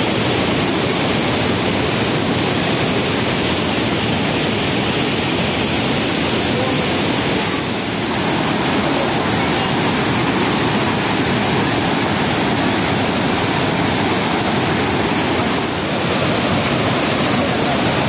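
Loud, steady rush of the Vazhachal waterfall's rapids, white water pouring over a wide run of rock.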